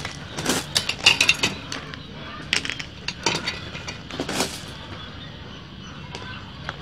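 Irregular clinks and knocks of hand tools being picked up and handled, a hacksaw among them, mostly in the first four seconds or so, then quieter.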